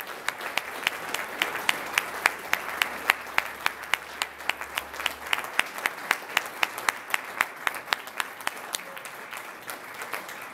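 Audience applauding, with one nearby pair of hands clapping steadily about three times a second above the rest. The applause thins toward the end.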